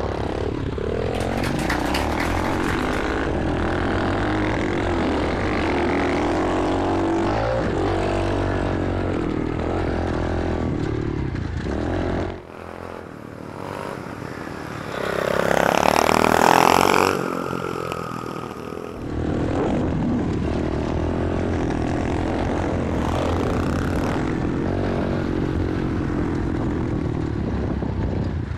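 Pit bike engines running and revving as the riders ride, heard from a helmet-mounted camera. The engine note drops away briefly a little under halfway through, then rises to its loudest with a rushing sound a few seconds later.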